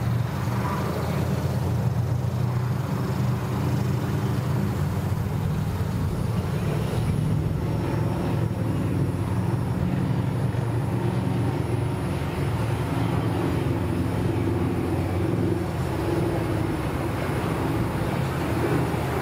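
An engine idling steadily, a low, even rumble with no change in speed.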